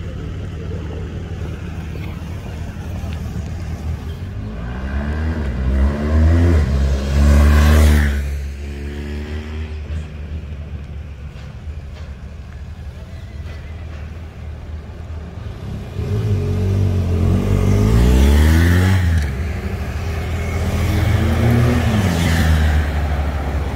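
Car engines accelerating past in street traffic over a steady low rumble. There are two loud passes, the first about a quarter of the way in, when the engine note rises and then drops away quickly. The second runs from about two-thirds in, with the engine note rising and falling.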